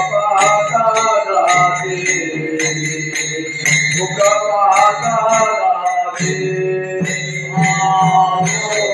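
Devotional bhajan of a dindi: voices chanting a tune over a steady low drone, with small metal hand cymbals struck in a steady beat, about two to three ringing clashes a second.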